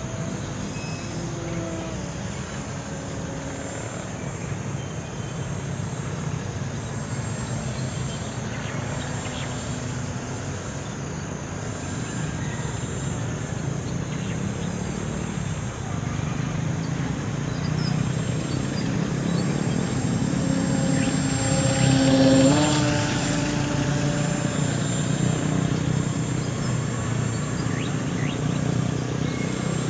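Electric RC plane's 1400kv brushless motor and propeller whining in flight, its pitch drifting up and down with the throttle. It grows louder as the plane comes near and drops sharply in pitch as it passes by about 22 seconds in.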